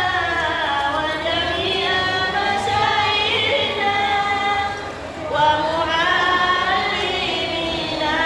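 Women singing a devotional Maulid chant together, one voice amplified through a microphone, in long held notes that glide between pitches. The singing eases briefly about five seconds in, then picks up again.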